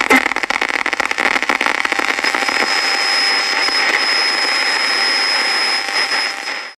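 Trailer sound-design noise: a loud, steady rushing sound, crackling at first. A thin high tone enters about two seconds in, and the whole sound fades out right at the end.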